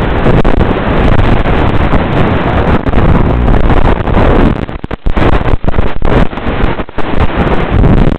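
Loud, steady wind rush over the onboard microphone of an FPV flying wing flying fast and low, dipping out briefly several times in the second half.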